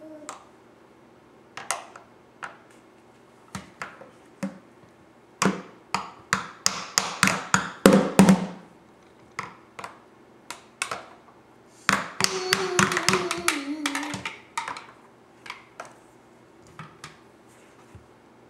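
Plastic toy drum struck unevenly with plastic mallets: scattered taps, with a quick flurry of beats from about five to eight seconds in and another around twelve seconds in.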